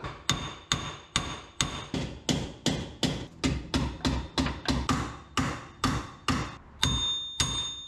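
Hammer blows on the steel bolts of a seized front wheel bearing hub assembly, driving it out of the steering knuckle, in a steady rhythm of about two to three strikes a second. Each strike rings with a high metallic tone, and the last two ring longest.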